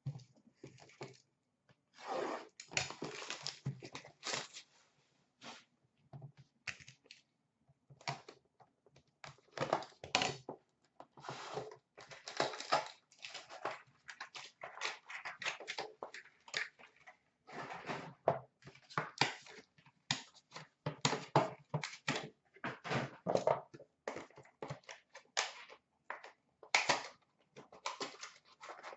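Cardboard trading-card box and its packs being torn open and handled by hand: irregular bursts of tearing cardboard and crinkling wrappers, with short pauses between.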